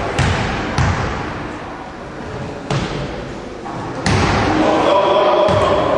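Basketball bounced twice on a gym floor, a lone thud a couple of seconds later, then shouting voices rising from about four seconds in.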